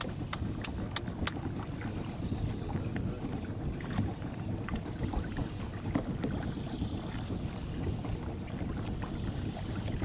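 Steady low rumble and water noise of a small boat under way. A run of sharp clicks, about three a second, stops about a second in.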